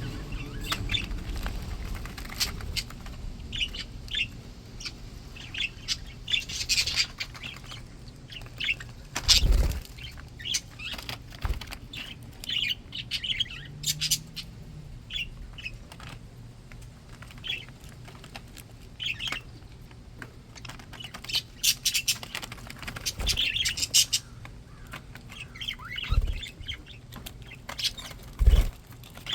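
Pet budgerigars chirping and chattering in quick, high, short notes, with a few sharp knocks or wing flutters scattered through.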